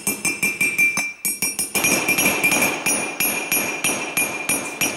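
A hammer rapidly taps a taper roller bearing's outer race into a Land Rover swivel ball, driving it in to seat it. It strikes about five times a second, and each light metal-on-metal strike rings high. There is a short pause about a second in.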